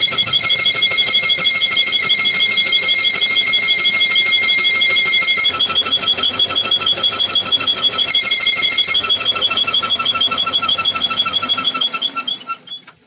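Lathe running with a fast, even ticking pulse and a high steady whine that drops out about halfway and comes back briefly, then winding down and stopping about a second before the end.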